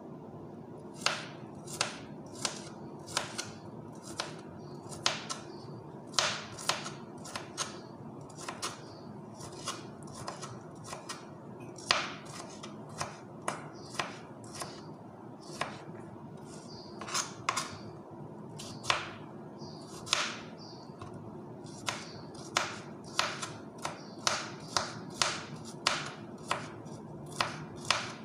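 Kitchen knife slicing a cucumber on a plastic cutting board: sharp, unevenly spaced taps of the blade hitting the board, about one or two a second, over a steady low hum.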